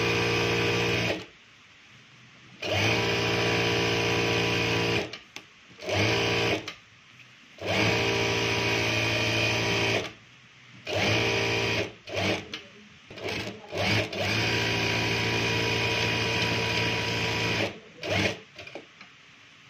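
Juki DDL-8700 single-needle industrial lockstitch sewing machine, driven by a servo motor, stitching fabric in steady runs of one to three seconds with short stops between. Near the end come a few brief bursts of stitching.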